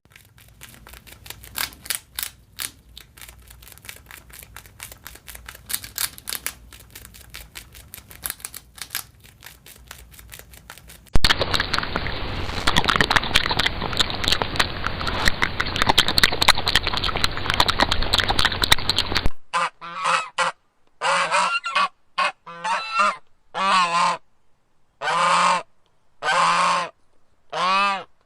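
A series of animal sounds. First comes a rapid, clicky chatter. About eleven seconds in it switches to a louder, dense clamour like a flock. From about nineteen seconds there are roughly nine long honking calls from large waterfowl, each about a second long, with short gaps between them.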